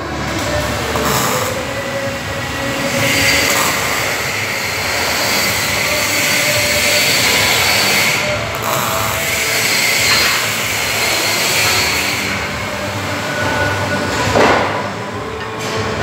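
MIG welding arc crackling and hissing, with the heaviest stretch of welding from about three to ten seconds in.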